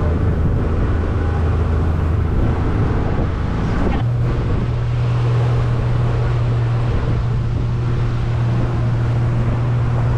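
Motorboat engine running steadily, with wind buffeting the microphone; about four seconds in, the low hum of the engine shifts to a higher, steadier pitch.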